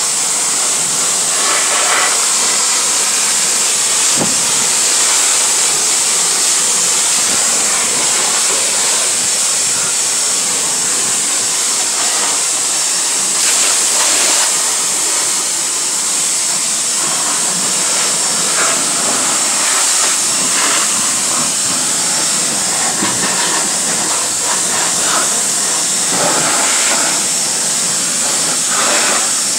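Pressure washer spraying, a steady, loud hissing jet of water blasting the grime off a car's vinyl seats, floor and door jambs.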